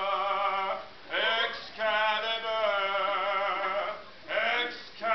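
A man singing unaccompanied in a drawn-out character voice: long held notes in phrases of about two seconds, broken by short gaps, each phrase opening with a rising swoop.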